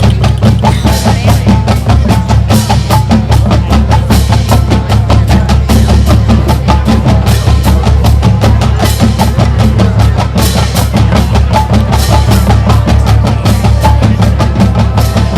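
Marching band drumline of snare, tenor and bass drums playing a fast, loud cadence, with rapid strokes over steady bass-drum hits.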